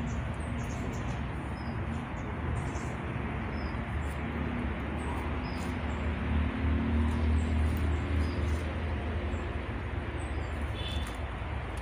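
Outdoor ambience: a steady hiss with a low, uneven rumble, and short high bird chirps scattered throughout.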